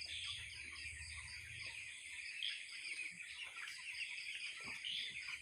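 Steady chirring of crickets, with scattered soft calls from young broiler chickens about two weeks old.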